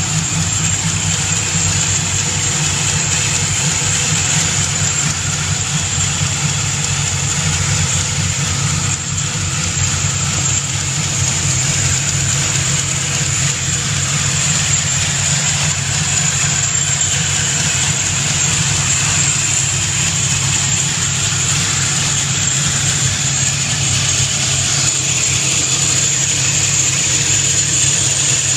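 Procharger D1-supercharged 363 cubic-inch V8 with a solid roller cam, idling steadily in a Fox-body Mustang.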